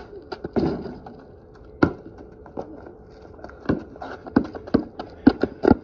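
Sneakers and a basketball striking a concrete driveway close to a phone lying on the ground: scattered sharp taps, one louder knock about two seconds in, then a quickening run of taps near the end.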